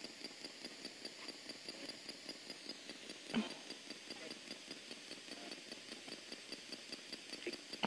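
P-SB7 spirit box sweeping the AM band: radio static chopped into short, even pulses several times a second as it steps from station to station, over a thin high tone, with one brief louder blip about three and a half seconds in.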